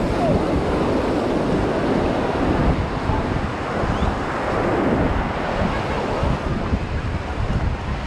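Ocean surf washing onto the beach in a steady rush of noise, with wind buffeting the microphone as a low rumble.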